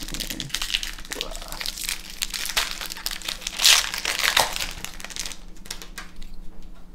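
A booster pack's foil wrapper being crumpled in the hands: a dense, crackling crinkle that is loudest a little past halfway and dies away about a second before the end.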